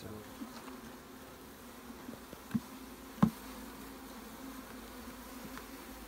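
Honey bee colony buzzing steadily around an opened hive box. Two sharp knocks sound near the middle, the second louder.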